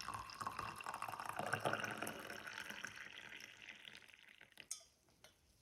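Water sounds: a dense, crackly liquid hiss with many small drips that fades away over about four seconds, followed by a single sharp click near the end.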